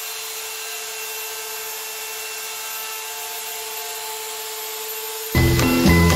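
CNC router spindle running with a steady whine over a hiss as it cuts aluminium composite panel. Loud music comes back in about five seconds in.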